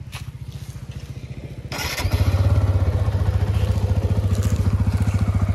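TVS Apache RTR 160 2V's single-cylinder engine being electric-started: a brief crank a little under two seconds in, then the engine catches and settles into a steady, even idle.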